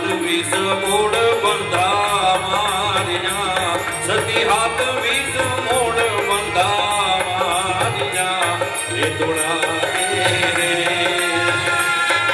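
Gujarati folk music played live by a dayro ensemble: a bending melody over a steady dholak and tabla beat.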